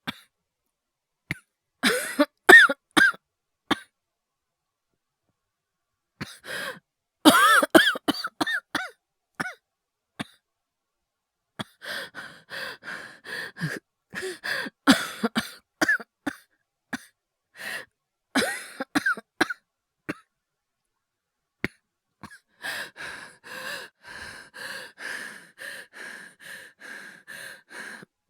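A voice actor's staged coughing: clusters of harsh coughs with pauses between them, then a long stretch of rapid, closely spaced coughs, ending in several seconds of fast, regular gasping breaths like an asthma or hyperventilation attack.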